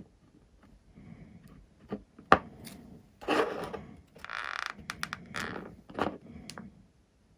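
Hands working on model plane parts at a workbench: a sharp knock a little over two seconds in, then a few seconds of scraping and rubbing broken by several clicks.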